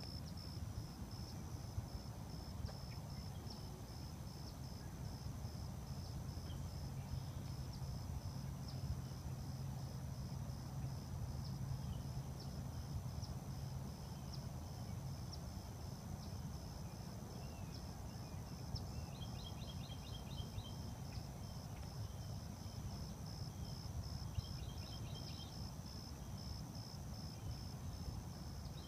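Outdoor marsh ambience: an insect, such as a cricket, chirps in a steady high pulse throughout over a low rumble. A low hum runs for several seconds in the first half, and twice in the second half a small bird gives a quick run of short notes.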